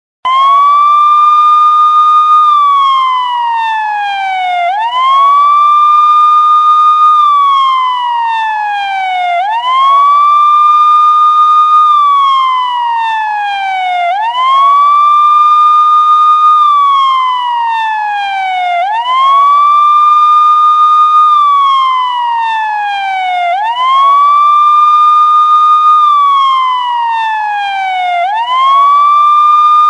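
Police siren wailing in a slow, regular cycle, about six times: each time the pitch sweeps quickly up, holds high for a couple of seconds, then slides slowly back down.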